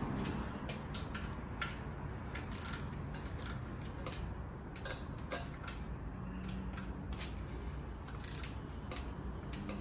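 Hand torque wrench ratcheting in irregular short clicks as the 10 mm-head M8 bolts along the top of an LS cylinder head are tightened to 22 foot-pounds.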